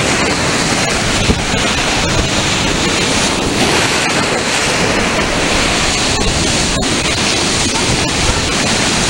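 Ocean surf breaking and washing up the sand as a steady rush of white water, with wind buffeting the microphone.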